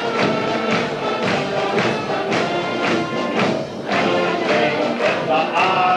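Music playing, with a group of voices singing along.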